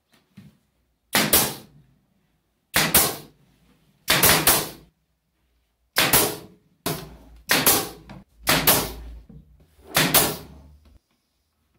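Brad nailer firing eight times at uneven intervals, about a second or so apart, driving nails into 3/4-inch MDF panels of a subwoofer box. Each shot is a sharp double crack that dies away quickly.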